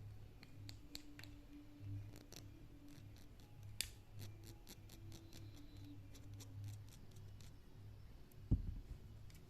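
A run of irregular sharp clicks and snips, the small sounds of a caged parrot working with its beak, over a low steady hum, with one dull thump near the end.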